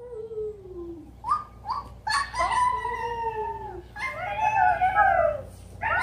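Children howling in imitation of dogs: several long, falling howls, some overlapping, the loudest about four to five seconds in.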